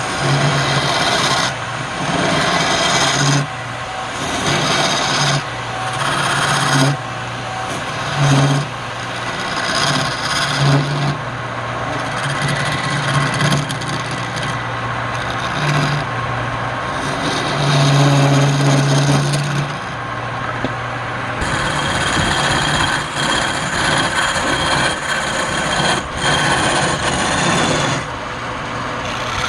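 Wood lathe running with a tool scraping and cutting against the spinning palm wood in repeated passes a second or two apart, over the motor's steady hum.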